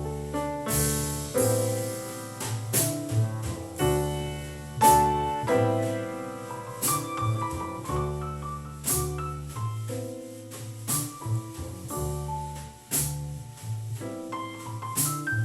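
Instrumental music with piano chords over a steady bass line and light cymbal strokes about once a second, played back through a Telefunken RA 100 integrated amplifier.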